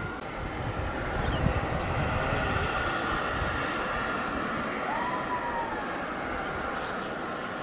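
ATR 72-600 twin turboprop engines and propellers droning steadily on final approach, with wind gusting on the microphone.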